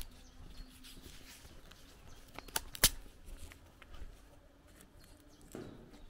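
Soft footsteps of someone walking, with two sharp clicks close together about halfway through, the loudest sounds.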